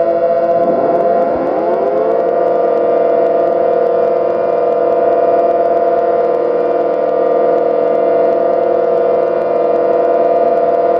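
Synthesized imitation of an old civil defense siren sounding a steady, multi-tone wail. Between about one and two seconds in, extra tones sweep up in pitch and settle into the held chord.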